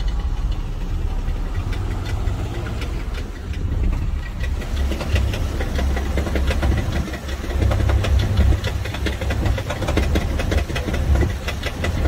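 Chrysler minivan engine idling with a loud, rapid crunching knock over a steady low rumble; the knocking grows more distinct about halfway in. A mechanic takes it for a broken flex plate on the automatic transmission.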